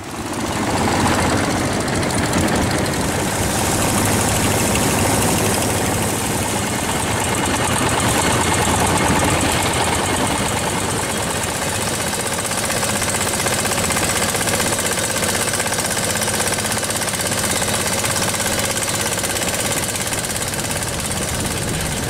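Long-tail boat engine running steadily at speed, with a fast, knocking low throb under a broad hiss of wind and spray. It comes in suddenly at the very start.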